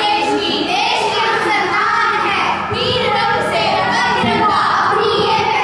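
A recorded song: a singing voice over instrumental backing music, loud and unbroken.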